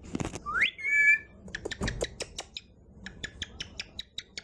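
Small caged pet birds calling: a rising whistle and a short chirp in the first second, then a quick run of short chirps, several a second, in the second half. A brief rustle comes at the very start.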